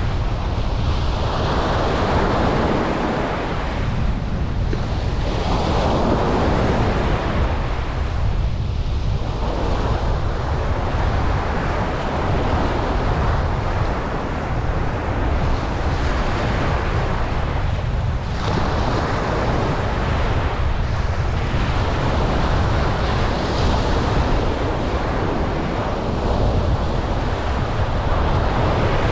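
Ocean waves breaking and washing up a beach, swelling and falling back every few seconds, with wind on the microphone as a constant low rumble underneath.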